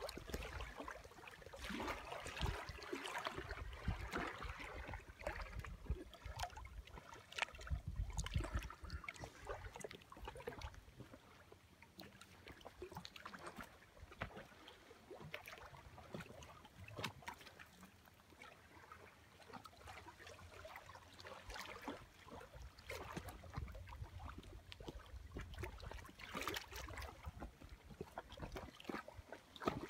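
Small waves on a lake lapping and splashing irregularly against the shore, with a low rumble of wind on the microphone now and then.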